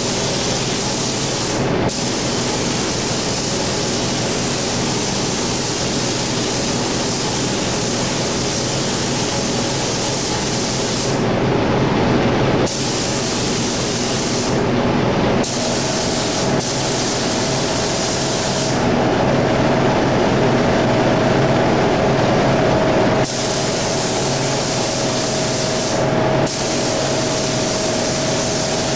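Gravity-feed spray gun hissing as it sprays a coat of black single-stage paint. The hiss comes in long passes, broken by short pauses when the trigger is let off. A steady machine hum runs underneath.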